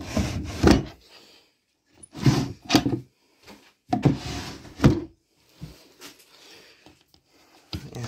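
A stuck wooden dresser drawer scraping in its runners as it is forced in three hard tugs, each ending in a sharp knock.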